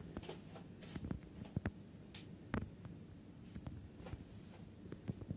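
Faint, irregular clicks and soft knocks in a quiet small room: the handling and movement noise of someone walking about with a handheld phone camera.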